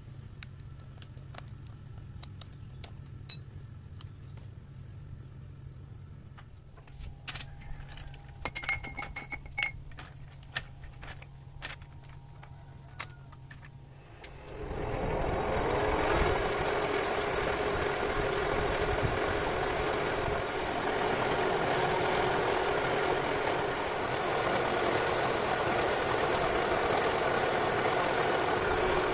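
A metal lathe starts about halfway through and runs steadily while a twist drill bores into the end of a spinning steel tube. It makes a loud, dense cutting noise over a steady motor tone. Before it starts, a low hum and scattered metallic clicks and taps.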